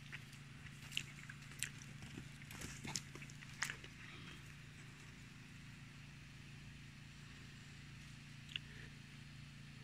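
Faint outdoor ambience with a steady low hum. A handful of sharp clicks and ticks come in the first four seconds, and one more near the end.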